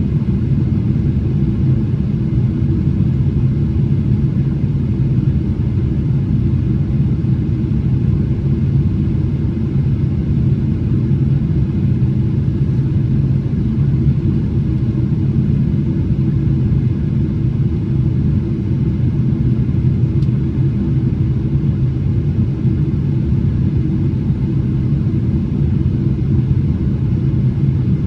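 Steady cabin rumble of a Boeing 777-300ER, its engines and airflow heard from inside the passenger cabin, deep and unchanging throughout.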